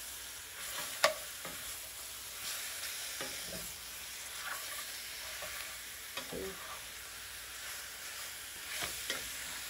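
Curry-seasoned oxtail pieces sizzling in oil in an enamelled cast-iron pan while being stirred and turned with a wooden spatula, with a steady sizzle and scattered knocks of the spatula against the pan, the sharpest about a second in.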